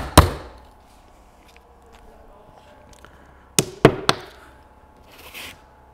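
Hammer driving a nail into a wooden beehive floor: one last sharp blow right at the start, a pause, then two more sharp blows close together about three and a half seconds in.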